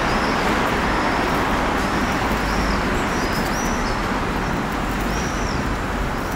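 Steady road-traffic noise, with a bird chirping over and over in short, high arched calls about once or twice a second.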